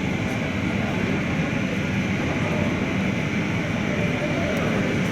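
Steady low rumble and hum of an airport gate area's background noise, with no distinct events.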